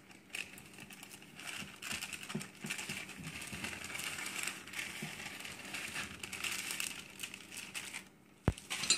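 Plastic cake-mix bag crinkling and rustling as dry powdered cake mix is shaken out of it onto fruit in a glass dish, with a sharp knock near the end.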